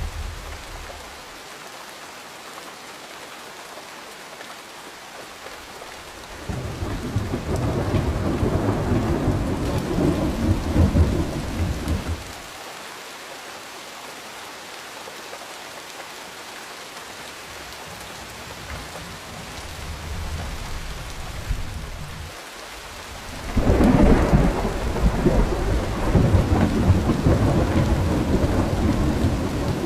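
Steady rain falling with rolling thunder. A long, deep rumble builds about six seconds in and fades about six seconds later, a softer one follows, and another loud rumble breaks in near the end, under the constant hiss of the rain.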